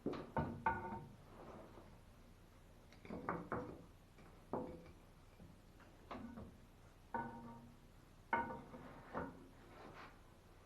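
Irregular metal clinks and knocks, about nine over the stretch, each ringing briefly with a clear tone: metal tools and pipe fittings being handled and struck.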